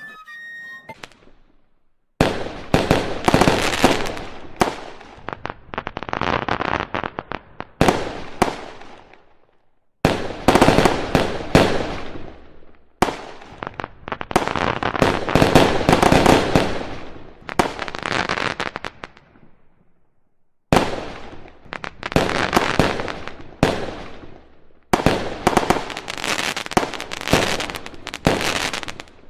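Fireworks going off: dense crackling and popping in about five long barrages, each starting suddenly and dying away, with short quiet gaps between them.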